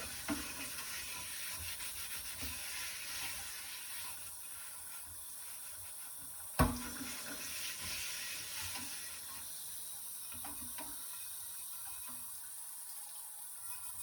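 Water running into a sink while a soft brush scrubs a cast iron Dutch oven. A single sharp knock about halfway through.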